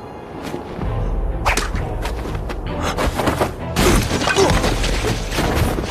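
Action sound effects of a rooftop fight landing: a run of sharp impacts and whooshes with clay roof tiles shattering, the densest crash about four seconds in, over a low steady musical rumble.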